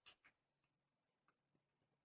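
Faint clicks of a lock pick and tension wrench working the pins inside a vintage Sears padlock: two quick clicks at the start, then a couple more over a second later.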